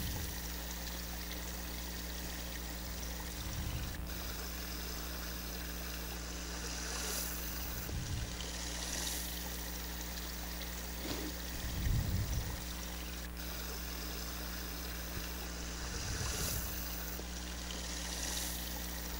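Small stream of water running over stones, a steady trickling rush, with a few soft bumps, the clearest about twelve seconds in.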